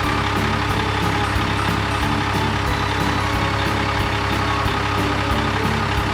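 A truck engine runs steadily under background music with a melody.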